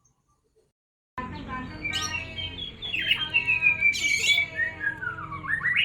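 A songbird singing a fast, varied song of chirps and whistles with sliding notes, starting abruptly about a second in, over a steady low hum.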